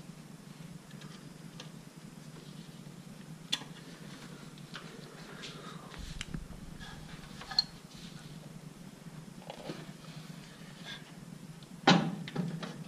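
Hands and a screwdriver working in an engine bay: scattered small clicks, scrapes and rustles as a hose clamp is loosened and the air flow meter is freed, with a faint steady hum underneath. Near the end comes a loud knock and clatter as the meter unit is handled.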